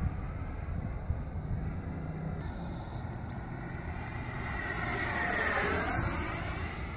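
E-flite Havoc RC jet's 80 mm electric ducted fan, fitted with a cut-down Wemotec EVO rotor, whining at high pitch in flight. It grows louder about five seconds in as the jet passes, and its pitch drops as it goes by.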